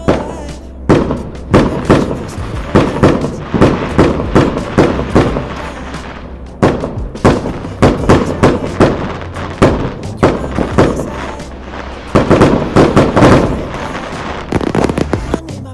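Fireworks going off in a rapid, irregular string of sharp bangs and crackles, densest about twelve to thirteen seconds in.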